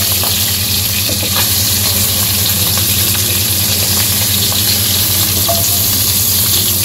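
Fish pieces frying in hot oil in a karahi, a steady sizzle, with light scrapes of a wooden spatula turning them.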